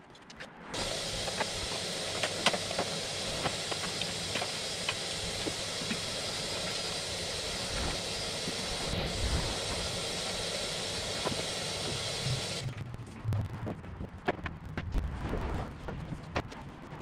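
A shop vacuum switches on about a second in, runs steadily for around twelve seconds with a few small clicks over it, and cuts off suddenly. Scattered knocks and footsteps follow.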